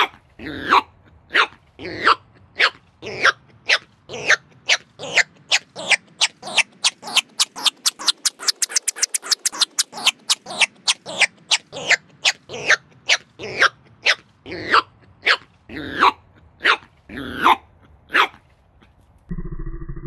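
A Biewer Terrier puppy barking over and over, played back sped up so the barks are quick and high. The barks come closest together, about five a second, midway and spread out again later. Near the end the barking stops and a low, muffled steady sound begins.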